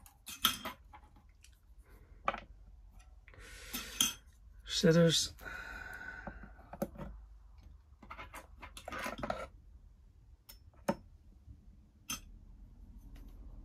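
Metal fly-tying tools, a bobbin holder and a pair of scissors, clinking and knocking as they are set into the holes of a wooden tying station. The sound is a scatter of separate light clicks and taps.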